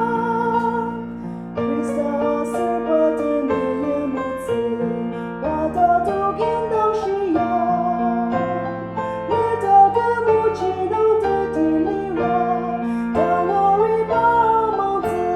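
Slow instrumental music led by a keyboard, a melody played over held chords.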